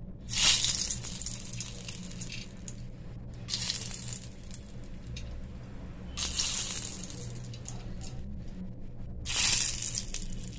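Whole spices dropped into hot oil in a pan, each one setting off a short burst of sizzling; four bursts, a few seconds apart.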